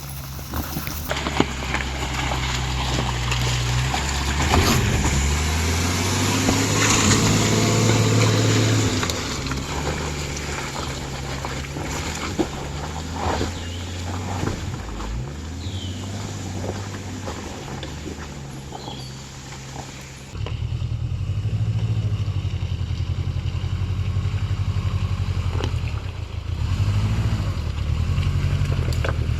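Subaru Outback engine running under load while driving an off-road trail, with a few sharp knocks from the rough ground. It gets louder from about four seconds in, and about twenty seconds in the sound jumps suddenly louder.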